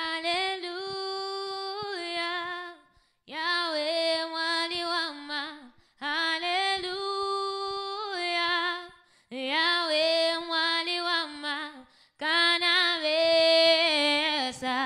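Women's voices singing unaccompanied, in five held phrases of about three seconds each with short breaks between them.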